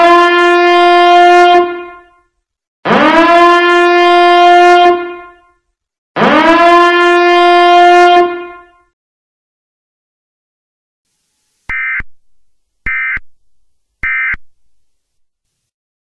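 Horn-like emergency siren sounding three long blasts, each sliding quickly up in pitch, holding one steady tone for about two seconds and then dying away. About twelve seconds in come three short electronic data bursts about a second apart: the Emergency Alert System end-of-message tones.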